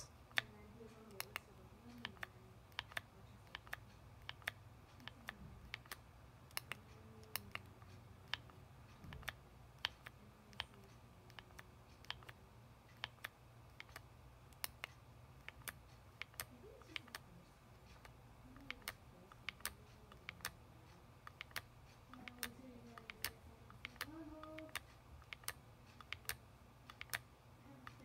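Sharp plastic clicks of a small thumb joystick being flicked and pressed to pick out letters. The clicks come irregularly, about one or two a second.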